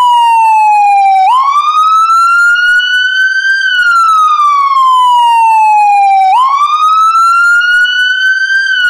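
Electronic emergency-vehicle siren on a wail: the tone slides slowly down, then snaps back up and climbs again, repeating about twice.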